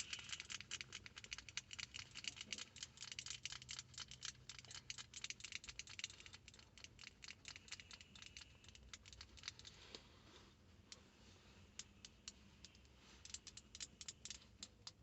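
Faint, rapid, light tapping clicks, many a second for about ten seconds, then slowing to scattered taps.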